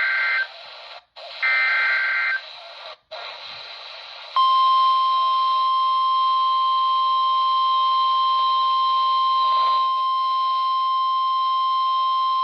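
NOAA Weather Radio Emergency Alert System signal heard through a RadioShack 12-254 weather radio's speaker, with static hiss from weak reception. It opens with the last two SAME digital header bursts, harsh warbling data tones each about a second long with short silences between them. About four seconds in, the steady single-pitch Warning Alarm Tone starts and holds, signalling a severe thunderstorm warning.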